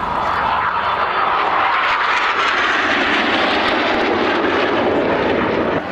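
Jet engine noise from a Red Arrows BAE Hawk T1, its Rolls-Royce Turbomeca Adour turbofan making a continuous roar overhead as the jet displays. The pitch slowly falls over the first few seconds as the aircraft passes.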